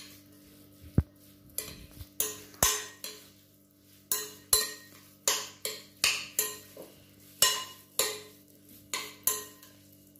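A utensil scraping and clinking against a bowl as seasoned ground meat (kefta) is mixed by hand. The sharp strokes come roughly twice a second after a quieter start.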